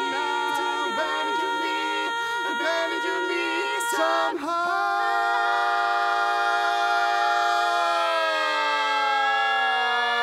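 Mixed barbershop quartet singing a cappella in close harmony on the final sustained chords of the song. About four seconds in the sound breaks briefly, then a long chord is held, and from about eight seconds in the voices slide down together into a new chord.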